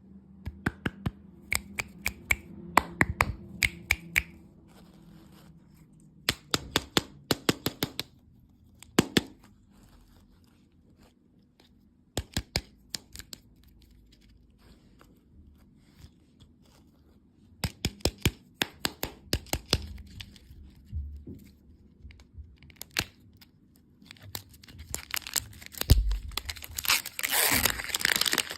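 Candy packaging being handled close to the microphone: clusters of sharp taps and clicks, then near the end a louder burst of wrapper crinkling and tearing.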